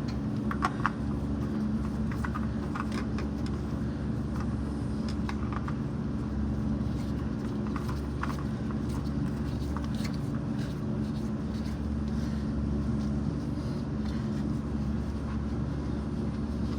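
Steady hum of an electric fan, with scattered light clicks and taps of tools and parts being handled.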